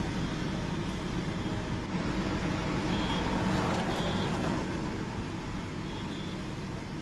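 Street traffic noise heard from inside a car: a steady rumble of engines and tyres. A few faint, short high tones come through about three, four and six seconds in.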